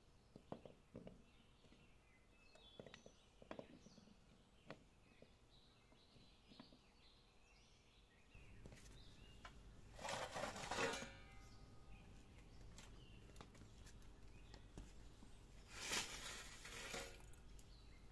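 Faint knocks of fired clay bricks being set down on concrete, with birds chirping faintly. Then, about halfway through, two loud rustling pours of about a second each as lump charcoal is tipped from a bag onto a small wood fire.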